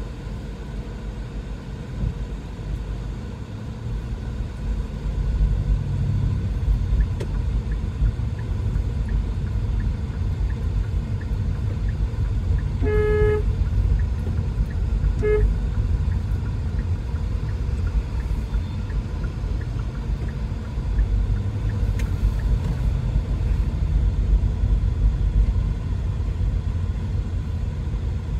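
Low, steady rumble of road and engine noise inside a moving car. About halfway through, a car horn sounds for about half a second, then gives a brief second toot.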